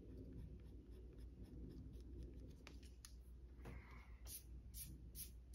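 Faint rubbing of a pen-style stick eraser on the paper of a 1945 comic book cover, then several short swishes of a bristle brush sweeping eraser crumbs off the page in the second half.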